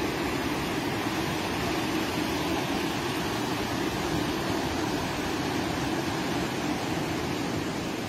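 Fast mountain river rushing over rocks: a steady, unbroken rush of white water.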